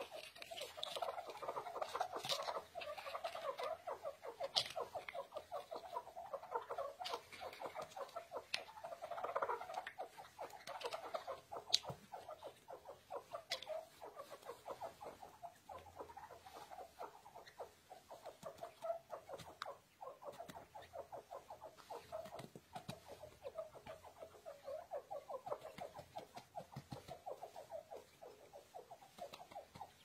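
Many newly hatched grey francolin chicks peeping rapidly and continuously, with a few sharp clicks scattered through.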